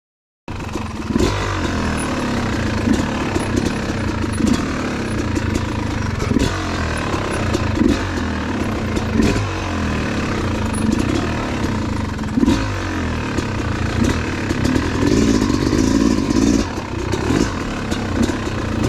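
Yamaha YZ250 two-stroke dirt bike engine running, cutting in about half a second in, with repeated short throttle blips that rise and fall in pitch, and scattered clattering knocks.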